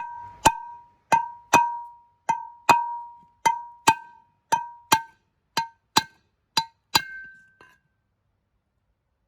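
Hammer blows on the boat propeller's bronze hub, about fifteen strikes, mostly in quick pairs, each leaving a clear metallic ring. They are reshaping the deformed hub end so it can be pressed out, and they stop about seven and a half seconds in.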